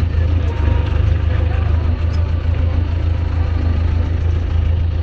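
Ursus 902 tractor's four-cylinder diesel engine running steadily under load while pulling a mounted plough, a loud, even low drone.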